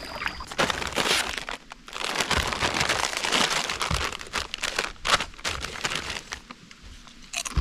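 Plastic chip bag crinkling as it is handled, a dense run of crackles that thins out in the last second or so.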